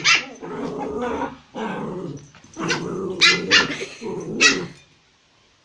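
Pomeranian puppies growling, with short, sharp barks: one right at the start and a burst of about four from halfway through. The growling and barking stop just before the end.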